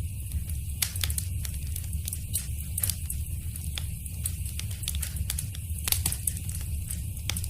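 Wood fire crackling in a fireplace: irregular sharp pops and snaps, several a second, over a steady low rumble and hiss.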